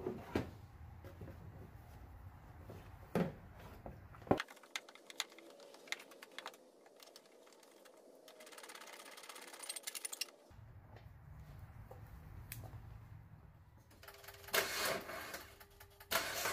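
Faint knocks and clicks of parts being handled and refitted in an engine bay, with a rapid run of ratchet-wrench clicks lasting about two seconds past the middle as the coolant reservoir's bolts are tightened, and a louder cluster of knocks near the end.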